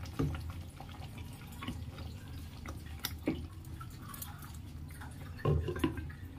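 Thick tomato-and-cream egg curry simmering in a steel kadhai, with scattered small bubbling pops. Near the end there is a louder clatter as a glass lid is set on the pan.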